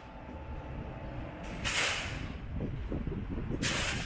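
Low, steady rumble of a Volkswagen Golf Mk6's engine as the car creeps slowly into the bay. Three short hisses come about a second and a half to two seconds apart.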